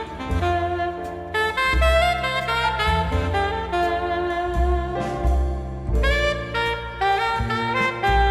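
Background jazz music led by a saxophone, over bass and drums.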